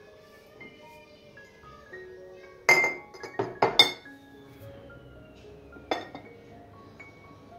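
Empty glass jars clinking against each other and knocking on the counter as they are handled: a sharp clink about three seconds in, a quick cluster of clinks just after, and one more about six seconds in. Soft background music with sustained notes plays under it.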